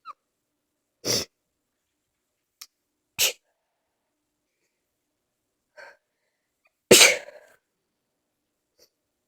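A person sneezing repeatedly in a sneeze fit. There are two short, sharp sneezes about two seconds apart, a faint one near six seconds, and then a louder, longer sneeze about seven seconds in.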